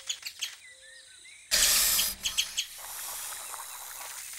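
Short bird-like chirps from a cartoon baby squirrel, then about a second and a half in a sudden loud rush of noise lasting under a second, followed by a steady softer hiss.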